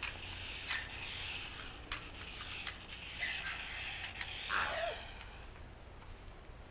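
Outdoor background hiss with a few scattered sharp clicks at irregular moments, and a brief, distant falling cry from a child about four and a half seconds in.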